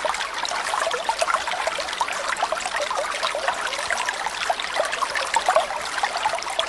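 A crowd of koi churning the water at the surface, a steady mass of small splashes and bubbly plops.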